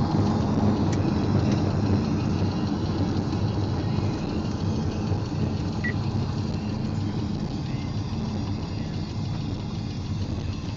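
Cabin sound of a Pontiac Grand Prix GXP's 5.3-litre V8 running at cruise, with tyre and road noise. It slowly gets quieter as the car eases off.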